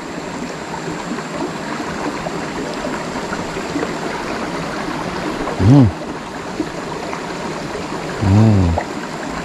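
Shallow rocky stream running steadily over and between stones, an even rush of water.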